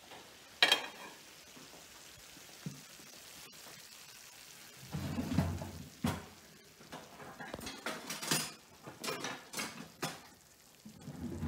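A spatula scraping and knocking against a frying pan of cooked pasta and broccoli as it is stirred, with one sharp knock about a second in and a run of short clicks and scrapes in the second half.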